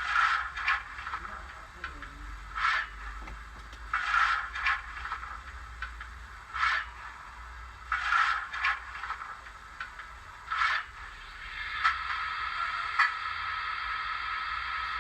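Digital steam-locomotive sound of a Hornby J15 model played by its Zimo MX648R sound decoder through a tiny 15×11×9 mm speaker. Slow, uneven exhaust chuffs with no bass, then a steady hiss of steam for about the last three seconds.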